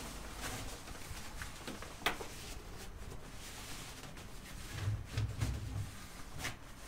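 Rustling and handling of a fabric pizza-oven cover as it is pulled down over the oven, with one sharp click about two seconds in and a few soft low bumps near the end.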